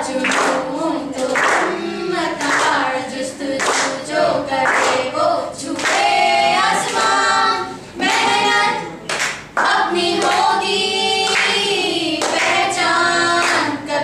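Young women singing a song together into a microphone, unaccompanied, with hands clapping along in time at roughly one clap a second.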